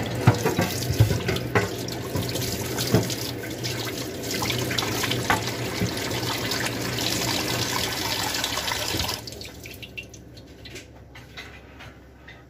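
Kitchen tap running into a sink with a few clinks of utensils, turned off about nine seconds in; after that only a few light knocks.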